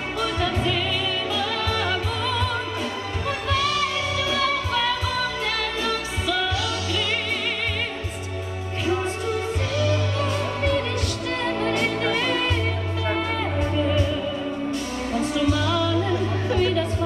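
A song: a singer holding long notes with a wide vibrato over a backing track with a deep, sustained bass.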